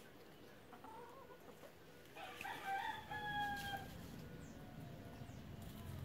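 A rooster crows once, a call of about a second and a half that climbs at the start and ends on a long held note. A brief call comes shortly before it, about a second in.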